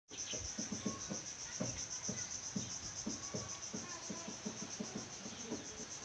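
Insects trilling: a steady, high, fast-pulsing chirr, with soft irregular taps underneath.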